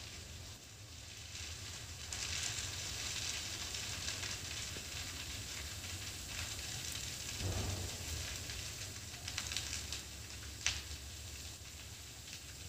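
Dry brush and scrub fire crackling steadily, with scattered snaps and one sharp pop near the end.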